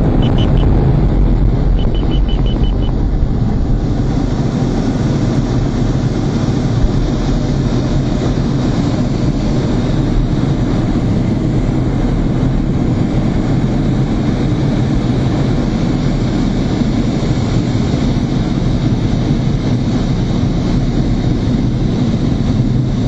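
Steady noise of a MiG-29's twin turbofan engines and rushing air inside the cockpit as the jet climbs. Two short runs of rapid, high-pitched beeping come in the first three seconds.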